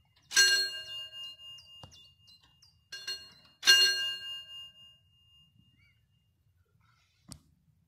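Mechanical warning bell of a level crossing with hand-operated barriers, struck a few times, loudest about half a second in and again near four seconds, each stroke ringing out with clear overtones and fading; the ringing dies away about five seconds in. A short knock near the end.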